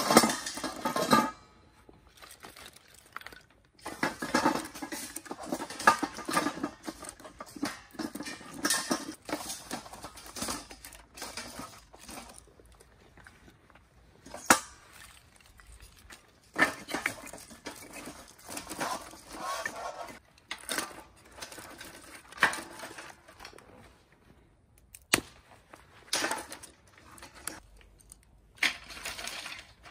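Dry sticks and split kindling being dropped and stacked into a stainless steel stove made from bain-marie pots, the wood clattering and knocking against the steel walls, with a few sharp knocks.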